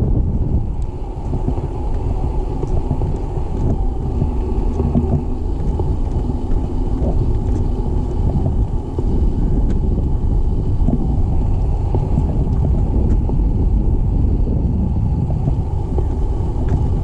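Wind buffeting the camera's microphone: a steady low rumble.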